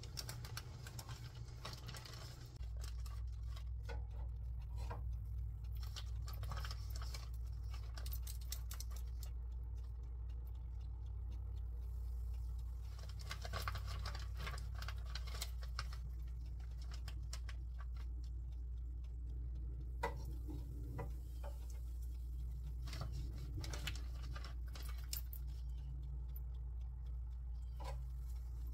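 Hot oil crackling and popping in a small electric deep fryer, in irregular bursts of fine crackles. Under it runs a steady low hum that comes in about two and a half seconds in.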